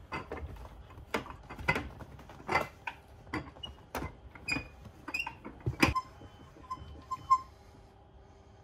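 Irregular creaks, clicks and knocks of a passenger shifting his feet and legs in a train seat, about a dozen in the first six seconds, then a few short high squeaks.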